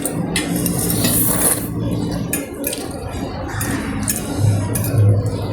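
Eating sounds: utensils clicking and clinking against a bowl or plate, several short knocks over a steady low hum.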